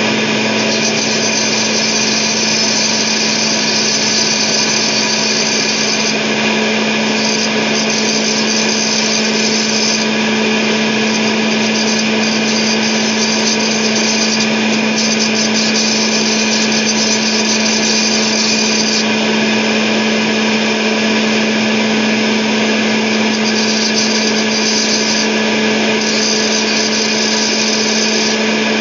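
Electric circular saw running steadily at speed, a steady motor whine, while a steel umbrella-rib wire is pressed against the spinning blade to grind its tip to a fine point. The high-pitched grinding comes and goes in several stretches a few seconds long as the wire is touched to the blade and lifted.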